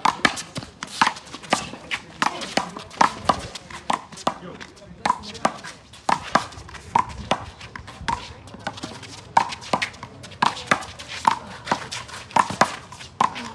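A one-wall handball rally: a small rubber ball is slapped by hand, hits the wall and bounces off the court, making a rapid, uneven run of sharp smacks, two or three a second.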